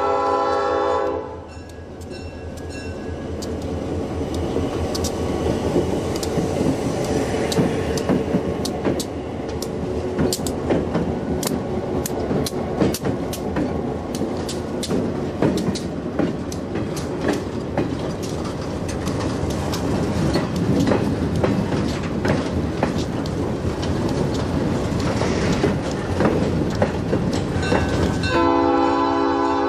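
Diesel locomotive air horn sounding a chord that cuts off about a second in. A freight train of boxcars and a tank car then rolls past, its wheels clicking and clanking over the rail joints in quick irregular strikes. The horn sounds again near the end.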